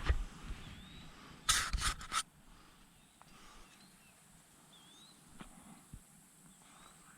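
Brief rustling and scraping close by, loudest about one and a half to two seconds in. After that the field goes quiet, with faint short bird chirps now and then.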